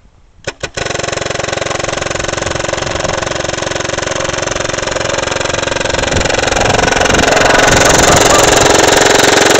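Home-built AGD Automag paintball minigun firing in one long, continuous rapid-fire burst, after a few single shots in the first second. It gets louder about seven seconds in.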